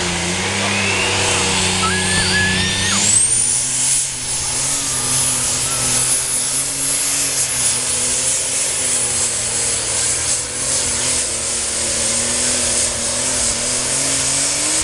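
Super Stock pulling tractor's turbocharged diesel engine running at idle, with a high whine that rises in pitch over the first three seconds and then holds steady.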